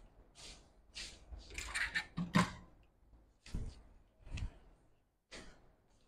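Scattered short rustles and light knocks from objects being handled on a workbench, the loudest about two and a half seconds in.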